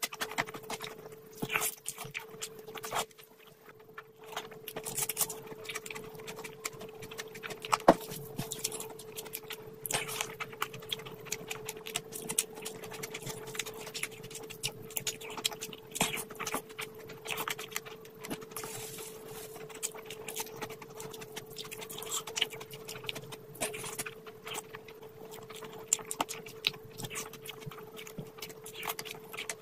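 Close-miked eating sounds of a person chewing a mouthful of fish and rice: wet chewing and lip smacking, with many irregular small clicks. A steady hum runs underneath.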